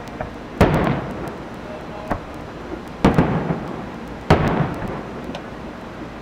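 Aerial fireworks shells bursting: three loud booms, each fading out over about a second, with a few smaller pops in between.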